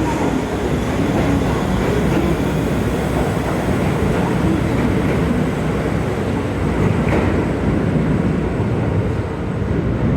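Electric train running on the rails, a steady loud rumble of wheels and motors.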